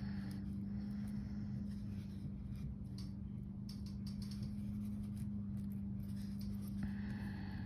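Faint scattered clicks of small metal jewelry findings and beads being handled while attaching jump rings and dangles, over a steady low hum.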